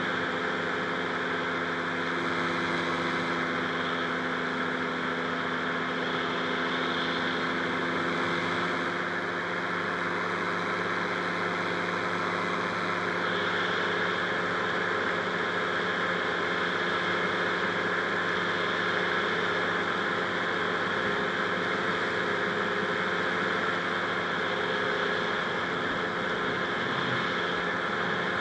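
Rotax 582 two-cylinder two-stroke engine of a Buckeye powered parachute running steadily, its tone shifting slightly about nine seconds in.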